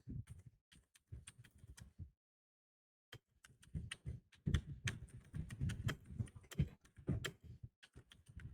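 Typing on a computer keyboard: quick, irregular keystroke clicks that pause for about a second near the start, then resume more densely.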